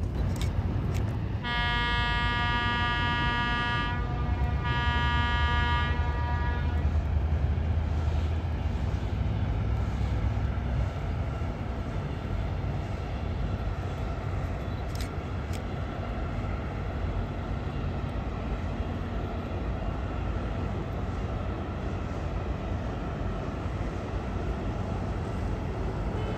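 The Hanseatic Inspiration's ship's horn sounding two long blasts as a salute, the first about a second and a half in and the second after a short gap. A steady low rumble runs underneath.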